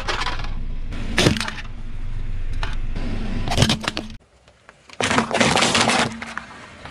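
A car tyre slowly rolling over and crushing small objects, with sharp cracks and crunches over the car's low engine hum. The sound cuts off suddenly about four seconds in, and a second burst of crackling crunches follows about a second later.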